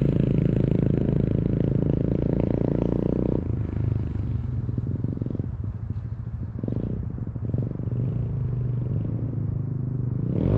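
Apollo pit bike's single-cylinder engine working under load up a steep hill climb: a steady engine note for the first few seconds, then lower and rougher. The rider blames the bike's gearing for a lack of power on the climb.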